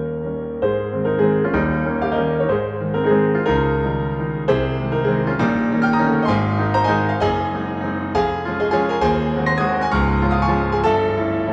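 Background piano music: a steady run of notes with sustained chords underneath.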